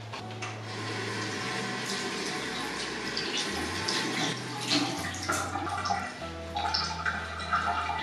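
Water running from a bathroom sink faucet as a sponge is wetted under it, over soft background music with a slow bass line.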